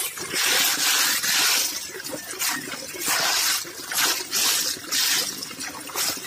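Handfuls of small snails being scrubbed against wet concrete: their shells rattle, clatter and scrape over the floor with water splashing, in repeated rubbing strokes, the longest one near the start.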